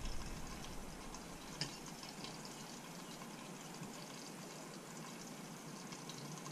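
Steady hiss of fish and chips sizzling in hot oil in a lidded frying pan, with a couple of faint clicks of a fork against a plate.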